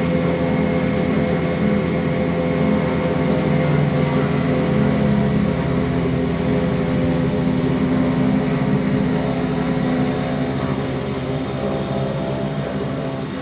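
Twin-turboprop Beechcraft King Air's engines running as the plane taxis off the apron: a steady propeller and turbine drone with a thin high whine. It gets a little quieter in the last couple of seconds as the plane moves away.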